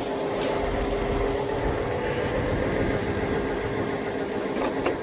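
Steady mechanical hum of running machinery, holding a couple of steady tones with no change in pace.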